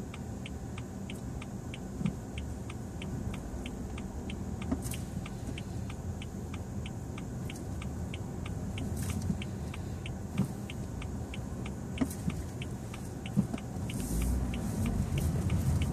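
A car's turn-signal indicator ticking steadily inside the cabin, about two and a half ticks a second, over a low engine and road hum. The hum grows near the end as the car pulls away.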